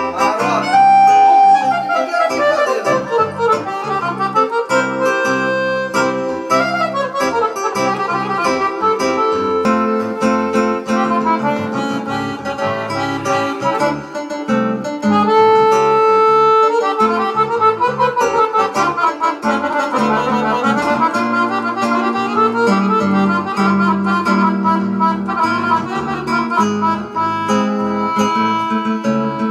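Piano accordion playing a lively instrumental tune, quick runs of melody notes over a steady bass-and-chord accompaniment.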